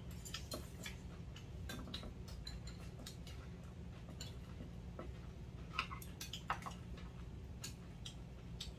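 Metal chopsticks and spoons clicking irregularly against ceramic bowls and plates, with chewing, as two people eat a meal. Two sharper clinks come a little past the middle, over a steady low hum.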